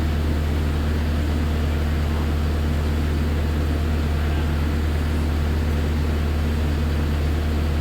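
Kubota SVL90 compact track loader's diesel engine running at a steady, even speed with a low hum.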